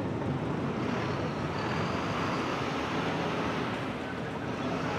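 Vintage tram running along its track: a steady rumble of the car rolling on the rails, with a faint high whine from about a second in that fades out past the middle.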